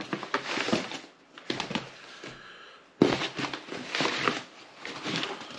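Cardboard box and crumpled packing paper rustling and crackling as hands rummage through a parcel, in three uneven bursts with brief pauses between.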